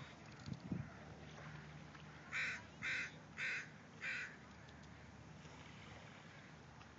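A crow cawing four times in quick succession, about half a second apart, the calls harsh and loud over a quiet background.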